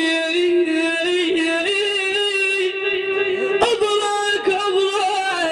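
Male madih singer chanting an Arabic religious praise song, holding long, ornamented wavering notes. A single sharp knock comes about two-thirds of the way through.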